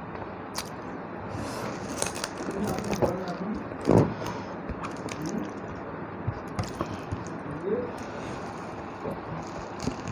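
Close-up eating sounds of someone chewing rice and fish curry: wet chewing and lip-smacking with scattered small clicks, and one louder thud about four seconds in.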